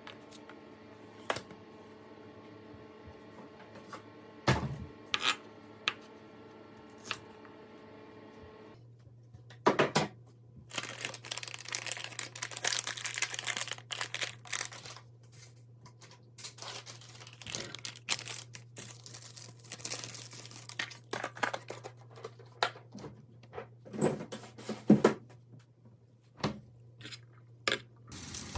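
Handling sounds of food preparation: plastic packaging being torn and crinkled, with occasional light clicks and clinks, over a steady low hum. The sparse clicks of the first part give way, about nine seconds in, to a long stretch of dense, irregular rustling and scraping.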